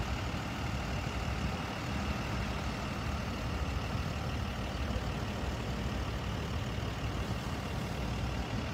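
Vehicle engines idling: a steady low rumble.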